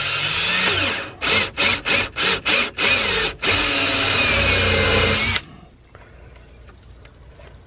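Cordless drill turning a 7/8-inch hole saw with pilot bit into the plastic back panel of a side-by-side's cab. It runs steadily, then in about seven short bursts over two seconds, then steadily again, and stops about five and a half seconds in.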